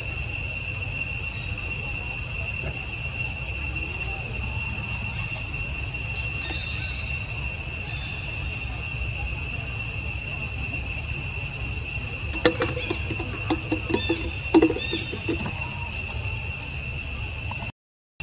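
Steady shrill chorus of insects droning at several fixed pitches. A few short, louder sounds break in about two thirds of the way through.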